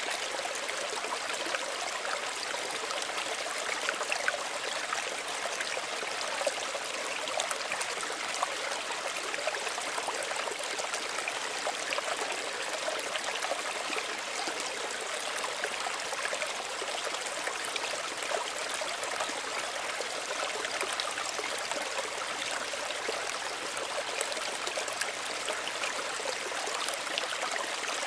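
Small stream running steadily, water trickling and babbling over stones with constant fine splashing.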